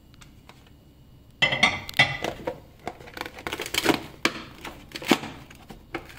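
A plastic lid is put onto a plastic food-storage container and pressed shut. After a quiet start, a run of clattering plastic knocks begins about a second and a half in, followed by several single clicks as the lid is pressed down.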